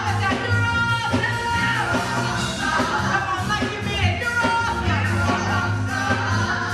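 Live gospel praise song: a woman sings lead into a microphone, with backing singers and band accompaniment under a steady bass line.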